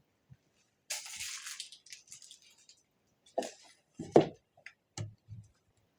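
A brief scraping rustle, then a few separate knocks and thumps, the loudest about four seconds in, with a room echo.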